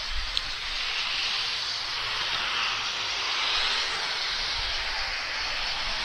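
Steady rushing hiss of wind and road noise while riding a bike, with uneven low buffeting of wind on the microphone.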